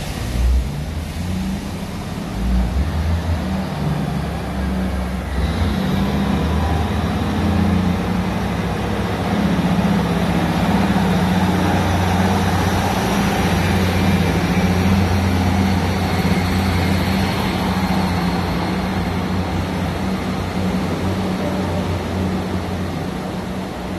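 Class 158 diesel multiple unit pulling out under power, its underfloor diesel engines running with a deep steady hum that builds over the first few seconds as the carriages pass close by, then eases a little as the train draws away.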